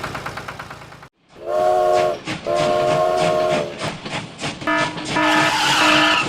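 A rhythmic ticking motor that cuts off about a second in. Then a horn sounds two long, steady blasts, followed by a third, higher blast of several notes at once over a hiss.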